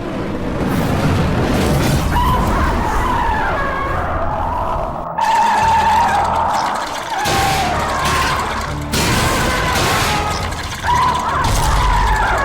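Gamera's roar sound effects: several drawn-out, high-pitched, wavering roars over a heavy low rumble.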